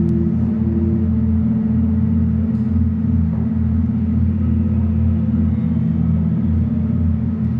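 A steady, loud low drone made of several held low tones, with a short higher tone sounding briefly now and then.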